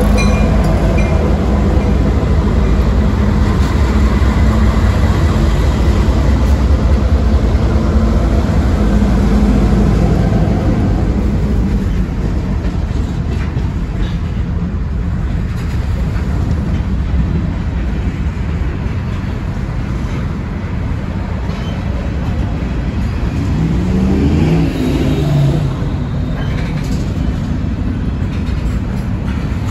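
Train running past at close range, a heavy low rumble with a diesel engine's steady drone that eases off about twelve seconds in. A brief wavering tone sounds near the end.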